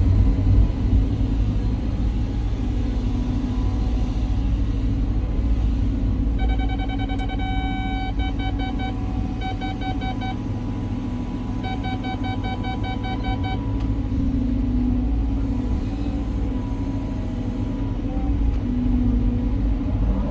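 Cat 323 hydraulic excavator's diesel engine running steadily with a low rumble. Through the middle, a rapid electronic beeping sounds in three runs.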